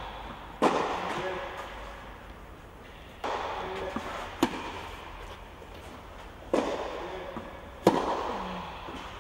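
Tennis racket strikes in a rally on an indoor clay court: about five sharp pops spaced one to three seconds apart, each ringing on with a long echo in the covered hall.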